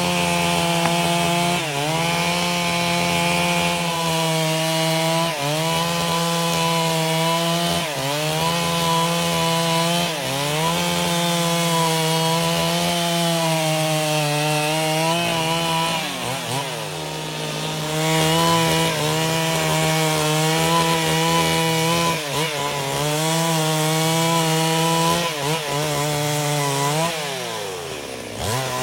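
Two-stroke chainsaw rip-cutting lengthwise along a log to mill a plank, the engine running at high revs and dipping briefly in pitch every two to three seconds as the chain takes load. About halfway through the revs drop low and then climb back up, and they drop again near the end.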